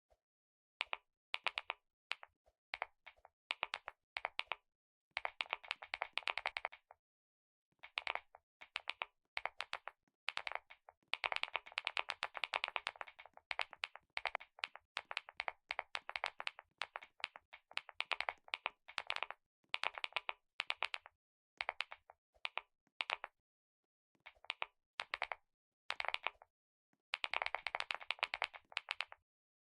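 Computer keyboard being typed on: rapid runs of key clicks in bursts of a second or two, broken by short pauses.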